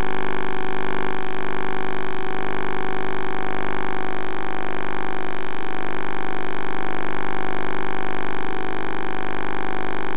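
Loud, steady electrical hum and buzz, many tones layered together and unchanging, typical of electrical interference picked up on a downhole well camera's audio feed.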